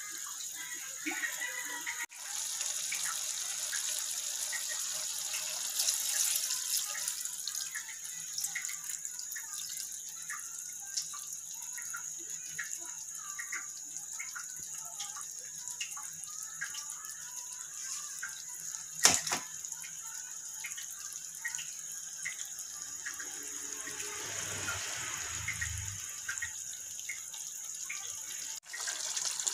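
Stew simmering in a wok: a steady watery bubbling and sizzling with many small pops. A single sharp knock comes about two-thirds of the way through.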